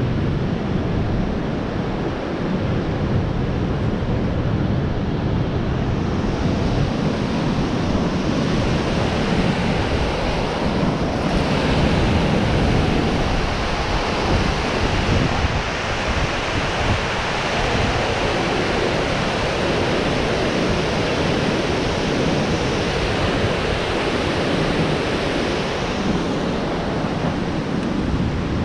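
Waterfall and fast river rapids rushing in a steady wash of white-water noise, with wind buffeting the microphone. The hiss of the falling water swells several seconds in and drops back near the end.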